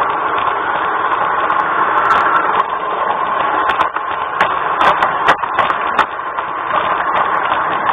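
LGB G-scale garden-railway train running steadily, with the hum of its motor and gears and irregular sharp clicks of the wheels over the track.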